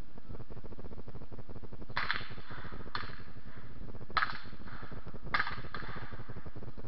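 Five gunshots from black-powder firearms on a firing line, spaced irregularly over about four seconds, each with a short echo. A steady low background rumble runs under them.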